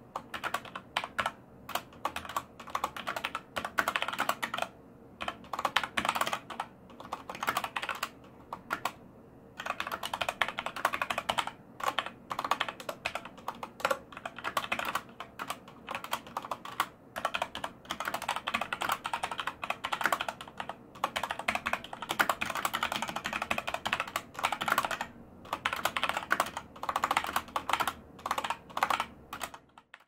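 Fast typing on a Corsair K95 RGB Platinum mechanical keyboard with linear Cherry MX Speed switches: a dense run of key clacks, broken by a few brief pauses.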